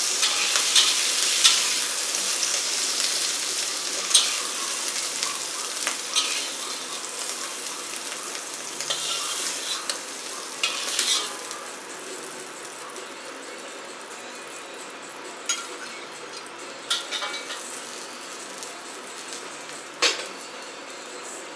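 Food sizzling in a hot wok, with a metal spatula scraping and knocking against the pan. The sizzle fades over the first half as the food is scooped out, leaving a few sharp spatula knocks on the wok, the last and loudest near the end.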